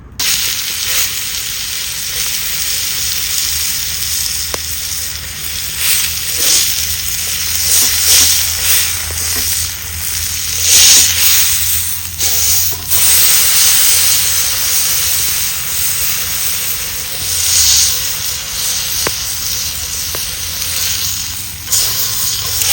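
Food frying in an iron frying-pan dish over a campfire: a loud, steady sizzle that swells louder a few times.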